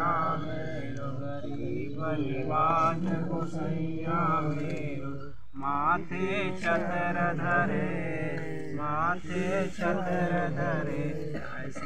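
Devotional hymn chanted in a sung recitation, as at an aarti, its melodic lines wavering over a steady low hum, with a short break about halfway.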